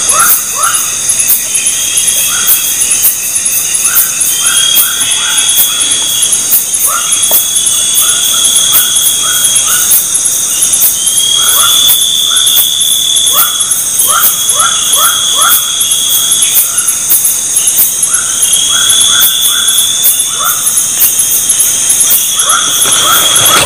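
Loud night chorus of insects: a steady high-pitched trilling with a fast pulse, a drawn-out higher call repeating every second or two, and short chirps in quick groups of three or four every few seconds.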